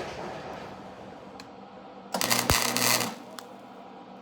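Welding arc crackling and buzzing for about a second, a short weld or tack, with a few faint clicks before and after it.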